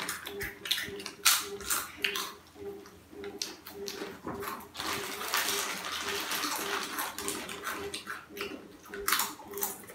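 Lay's foil crisp packets crinkling and rustling as they are opened and handled, with potato chips being crunched. The sound is a run of short, irregular crackles.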